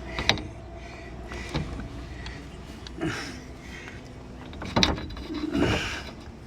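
Several sharp metal clanks and knocks, about five spread over a few seconds, as a truck's front driveshaft is worked into place under the vehicle.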